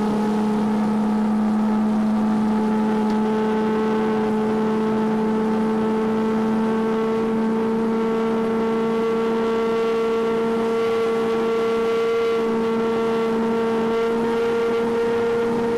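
Tour boat's engine running steadily underway, a humming drone whose pitch creeps up slightly.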